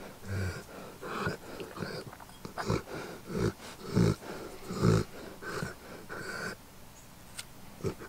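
Old English Sheepdog making a string of short low vocal sounds, about one a second, while hair is plucked from its ear; the owners take it for the sound he makes when he is enjoying it. The sounds stop about two-thirds of the way in.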